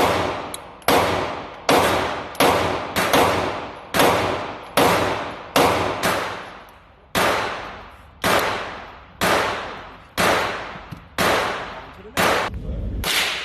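M&P Shield 2.0 handgun fired in a steady string of about fifteen shots, roughly one a second, each shot echoing and dying away slowly.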